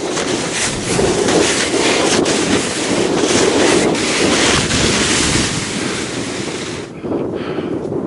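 Wind buffeting the camera microphone: a loud, rough rushing that dips briefly near the end.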